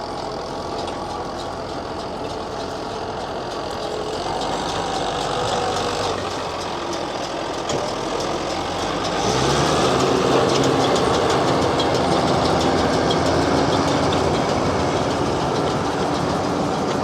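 Farm tractor's diesel engine running steadily, growing louder and heavier about nine seconds in.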